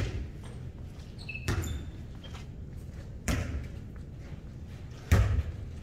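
A volleyball being struck four times during a rally, one hit every second and a half or so, each echoing around a large gym hall; the last, near the end, is the loudest.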